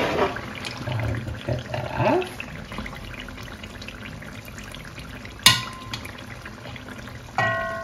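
Liquid pouring and trickling as fat is taken off a pot of simmering chicken curry, with a utensil clinking once against the pot about five and a half seconds in and a ringing clang near the end.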